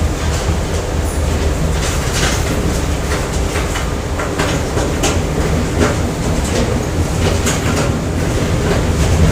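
Factory machinery ambience: a steady low mechanical rumble with irregular metallic clanks and clicks scattered over it.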